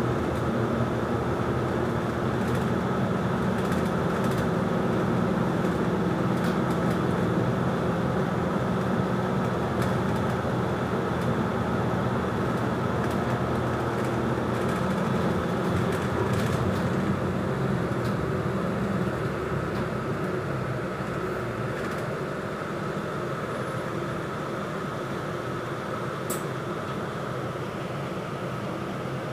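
Steady engine and road noise heard from inside a moving city bus, with a few faint rattles and clicks. The noise drops a little about two-thirds of the way through.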